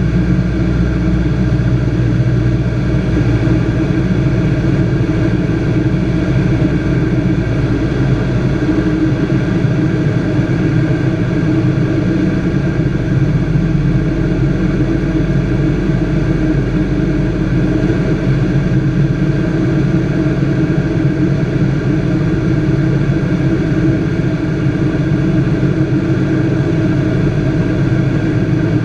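Robin DH200 light aircraft's piston engine and propeller running at a steady, even drone.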